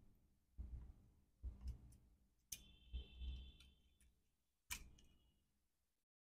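Faint clicks and taps of small tools and laptop parts being handled while a MacBook Pro logic board is taken out, about half a dozen at irregular intervals. Two of them are followed by a short, high metallic ring.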